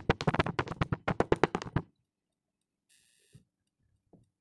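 Fast, even tapping, about eight to ten sharp taps a second, that stops abruptly about two seconds in. Then near quiet with a couple of soft, dull thuds as the kinetic sand drops and slumps onto the table.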